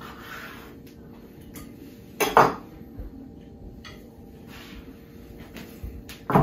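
Kitchen knife working on a wooden cutting board as excess skin is trimmed from a raw duck: quiet cutting and handling with two loud knocks, one about two seconds in and one near the end, as the knife and duck are set down and picked up.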